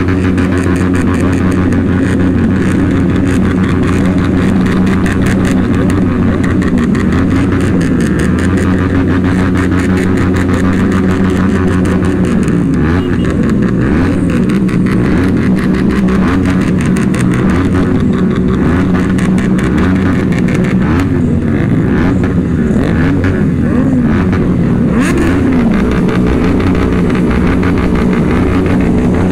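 Vehicle engines running steadily, with one engine's pitch repeatedly rising and falling as it is revved up and let back down, over and over.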